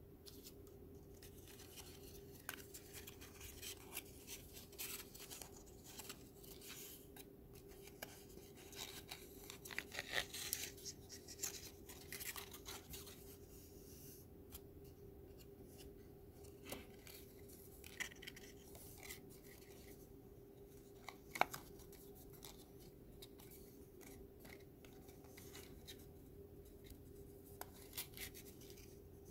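Thin, stiff Kent card handled and slotted together by hand: faint rustles, scrapes and small clicks, busiest about ten seconds in, with one sharp click a little past twenty seconds. A steady faint hum runs underneath.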